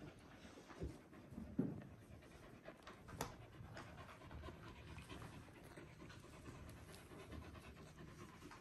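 Three-week-old Border Collie puppies breathing and sniffing quietly as they crawl about the bedding. A few brief soft knocks come through; the loudest is about one and a half seconds in.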